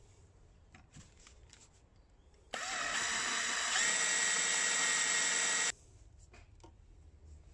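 Electric drill running for about three seconds as it bores a hole into the metal headstock of a mini lathe, with a steady whine that steps up slightly partway through and cuts off abruptly. Faint clicks come before it.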